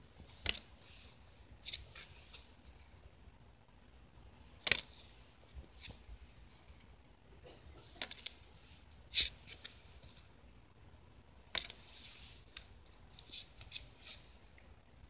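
Trading cards being handled: cards slid off and laid down on a loose pile, giving irregular sharp papery snaps and short rustles, the two loudest about five and nine seconds in.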